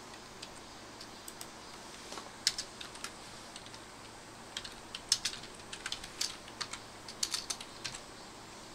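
Computer keyboard typing: irregular clicking keystrokes in two bursts, with a short pause around the middle.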